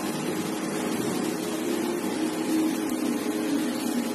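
Steady background hum with a faint hiss, even throughout, with no distinct knocks or clicks.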